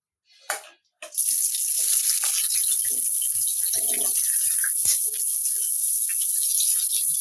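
Sliced onions hitting hot oil in a heavy-bottomed kadhai: a loud sizzle starts suddenly about a second in and holds steady, with soft rustling and a couple of light knocks as the onions are pushed off a steel bowl.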